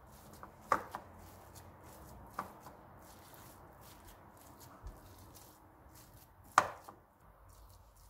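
Silicone spatula mashing and mixing a soft potato, mince and cheese filling in a bowl, with quiet squishing and a few sharp knocks against the bowl, the loudest near the end.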